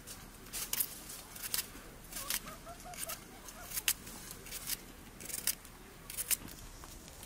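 Kitchen knife slicing peeled garlic cloves held against the thumb, a short sharp click with each cut, about one or two a second.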